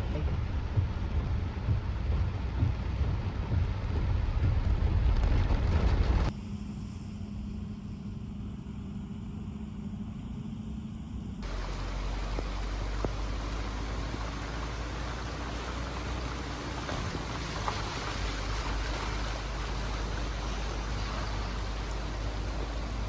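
Typhoon wind and heavy rain: loud low rumbling of wind for about six seconds, a sudden drop to a quieter stretch, then a steady hiss of heavy rain from about eleven seconds in.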